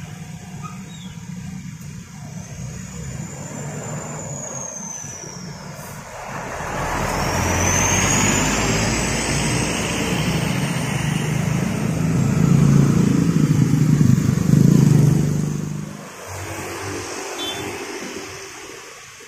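Road traffic at a busy junction: the engines of trucks, buses, cars and motorcycles make a steady low rumble. It grows much louder from about seven seconds in as vehicles pass close with tyre noise, then eases off near the end. A faint high whine rises and falls twice in the first half.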